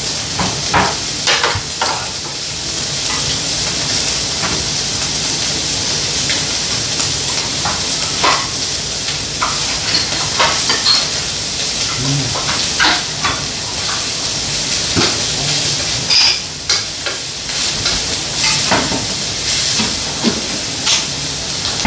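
Slices of beef sizzling in a frying pan with a steady hiss, with frequent short clicks and scrapes of chopsticks stirring against the pan.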